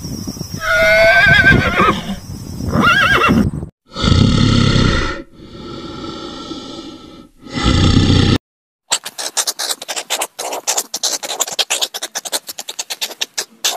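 A horse whinnying with a wavering pitch. About four seconds in, a brown bear growls in three bursts, the middle one quieter. From about nine seconds in, a meerkat gives a rapid, uneven run of short clicking calls.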